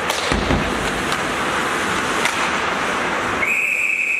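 Ice hockey play: rink noise of skating and sticks, with a few sharp clacks and a low thump near the start. About three and a half seconds in, a referee's whistle blows one long, steady, high note to stop play.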